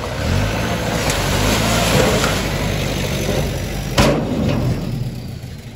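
Diesel engine of a Mitsubishi Fuso dump truck running with its bed tipped up to unload, a steady hum under a rushing noise. A single sharp knock comes about four seconds in, and the sound fades near the end.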